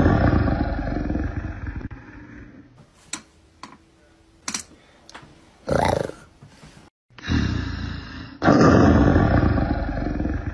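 Big-cat roar sound effect: a loud roar fading away over the first couple of seconds, then another roar that builds a little after halfway and surges loudest about two seconds before the end.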